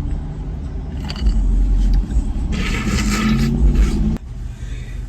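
Steady low rumble of a car heard from inside the cabin. From about two and a half seconds in, a louder stretch of hissing noise with a low hum rises over it, then cuts off sharply about four seconds in.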